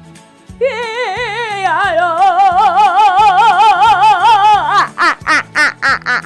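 A child singing one long, loud note with a wide, wobbling vibrato, then breaking into quick short choppy notes near the end, over background music with a steady beat.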